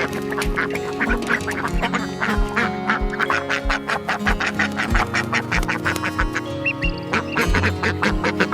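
Background music with a steady beat: a low drum about twice a second under sustained chords and quick plucked notes.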